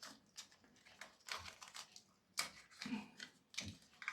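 Faint, irregular clicking and rustling of hands working a cable and tape, with a couple of soft knocks.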